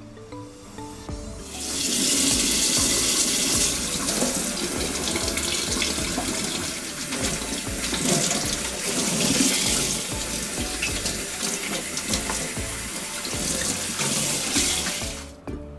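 Kitchen faucet running into a cored cabbage head, the water splashing over the leaves and into a stainless steel sink as the leaves are loosened and peeled off. The water comes on about a second and a half in and shuts off just before the end.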